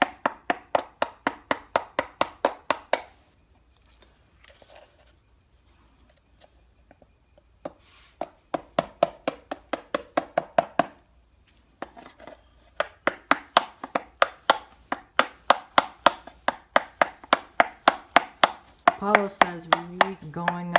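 Claw hammer tapping a chisel against a wooden door jamb, cutting a recess for a door hinge. The strikes come in quick runs of about five a second with a slight ring, broken by two pauses.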